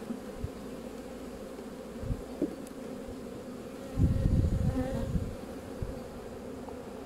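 Honeybees buzzing in a steady hum over an open hive, with a few low knocks and, about four seconds in, a short low rumble of handling as a frame is lifted out of the box.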